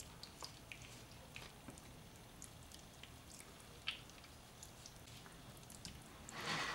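Faint wet squelches and small sticky clicks of a raw, marinade-coated whole chicken being worked down onto a pineapple core, with one sharper click about four seconds in and a louder wet squish near the end.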